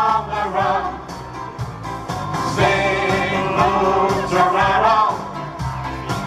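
Vocal group of men and women singing a 1940s wartime song in harmony through microphones over an accompaniment with a regular bass beat. They hold one long chord from about two and a half to five seconds in.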